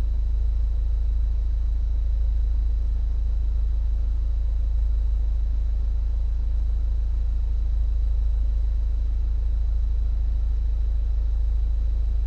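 BMW Z4 E85 2.0i's four-cylinder petrol engine idling, a steady low rumble.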